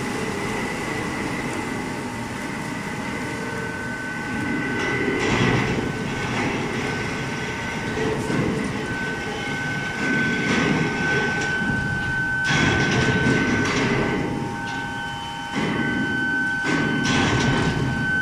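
Foundry noise from a running induction melting furnace: a steady high-pitched whine runs under a rough, rumbling din that swells louder several times, around five, ten, twelve and sixteen seconds in.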